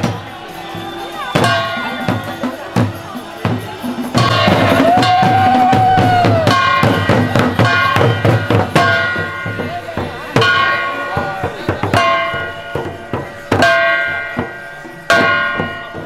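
Kirtan procession music: mridanga drums and hand cymbals playing, with a bell struck again and again, each stroke ringing out. The playing is busiest for a few seconds near the middle.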